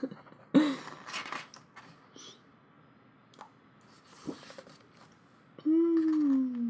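Photobook pages being handled and turned, with soft paper rustles and small clicks, then a drawn-out hum or "aww" from a woman's voice near the end, sliding slightly down in pitch.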